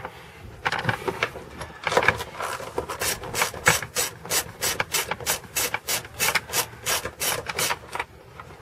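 Socket ratchet working a bolt, its pawl clicking on each short back-and-forth stroke, about four strokes a second over the second half, after a few irregular strokes.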